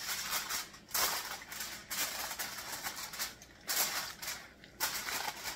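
Aluminum foil crinkling in several crackly bursts as it is pressed down over a glass baking dish.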